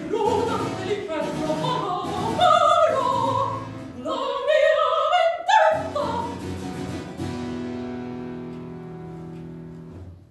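Soprano singing the last phrases of a baroque aria with harpsichord accompaniment, her voice stopping about six seconds in. A final chord then rings on and slowly fades out.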